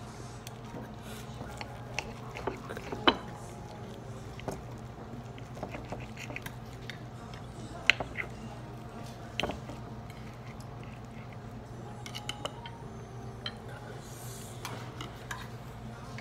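Steel knife and fork scraping and clinking against a ceramic dinner plate while cutting meat, with scattered sharp clinks, the loudest about three and eight seconds in, over a steady low room hum.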